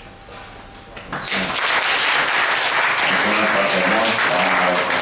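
Audience applauding, starting suddenly about a second in and holding steady, with voices heard under it.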